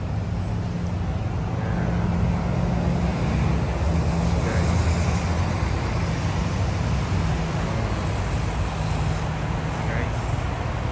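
Steady low mechanical drone with a constant hiss over it, and a couple of faint short chirps partway through.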